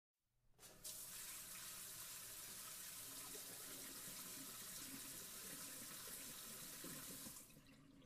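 Water running from a tap in a steady stream. It starts abruptly under a second in and cuts off shortly before the end.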